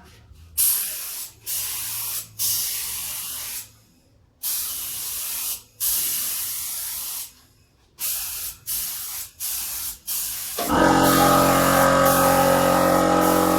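Compressed-air paint spray gun spraying in about ten short bursts of hiss as the trigger is pulled and released, the later bursts shorter and quicker. Music starts near the end and covers the rest.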